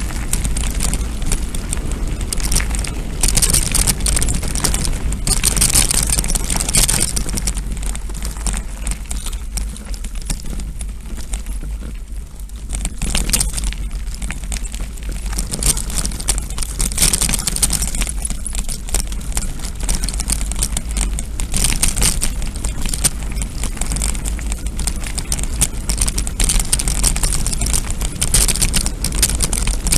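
Wind buffeting the microphone of a bike-mounted camera, with the crackle and rattle of a mountain bike rolling over a gravel dirt track. It eases briefly about twelve seconds in.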